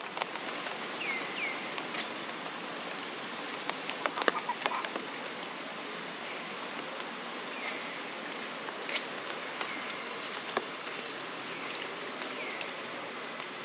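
Steady rain falling, with scattered sharper drop hits and a short cluster of louder taps about four seconds in. A few brief high chirps, falling in pitch, sound now and then.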